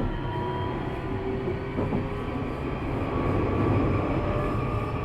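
Nishitetsu 3000-series electric train heard from inside a motor car while running: a steady rumble of wheels on rail with thin motor whine tones rising slightly in pitch, and a couple of knocks, one at the start and one about two seconds in.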